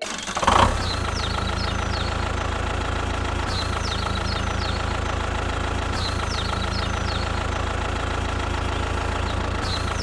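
A tractor engine idling steadily, with a brief louder burst about half a second in as it comes on. Short high chirps recur in the same pattern every couple of seconds, the mark of a repeating loop.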